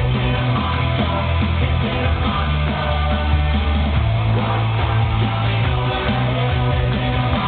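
Loud rock music with a heavy, steady bass: a darts player's walk-on music played over the hall's sound system.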